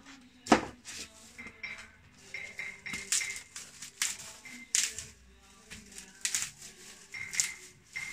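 Dry broom straw rustling and swishing in irregular bursts as bundles are handled and shaken, with a sharp knock about half a second in.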